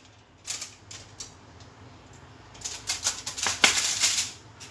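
Rustling and crinkling from handling during food preparation: a few scattered soft clicks, then a denser run of crinkling from about two and a half seconds in until near the end.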